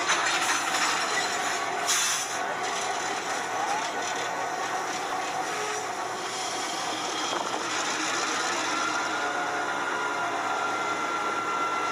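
Bachmann N scale GP7 model diesel locomotive running on its track, a steady small-motor and wheel rattle with a thin whine that rises slowly in pitch over the last few seconds as the train gathers speed. A brief rustle sounds about two seconds in.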